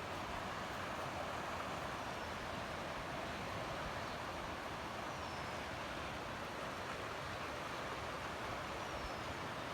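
Steady rushing of a river's flowing water, an even noise with no breaks.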